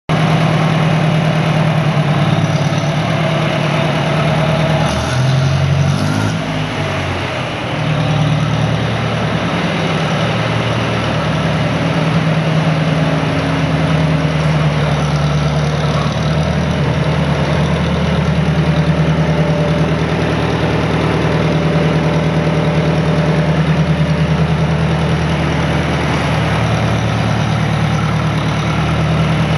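1961 John Deere 3010's four-cylinder 3.3-litre gas engine idling steadily, with a brief change in engine speed about five to seven seconds in.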